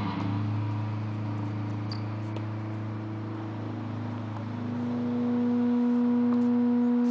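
Soundtrack music: a long held low note, then a higher, louder held note from about five seconds in.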